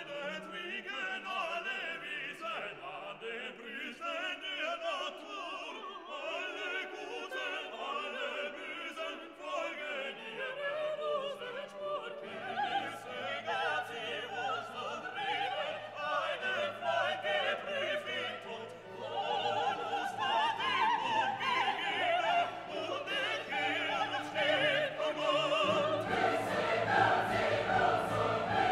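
Background classical music with singing voices over an orchestra. Lower bass notes come in about halfway through.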